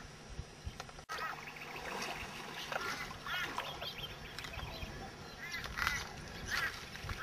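A flock of geese honking, many short calls repeating and overlapping. There is a brief dropout about a second in, and the honking is louder after it.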